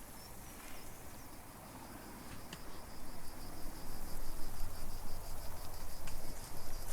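An insect chirping in a rapid, even pulse, with louder rustling noise building up about halfway through.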